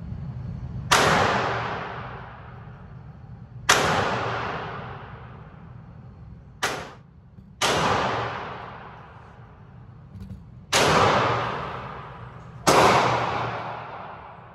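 Six single gunshots, one to three seconds apart, each followed by a long echoing decay in an indoor shooting range, over a steady low rumble.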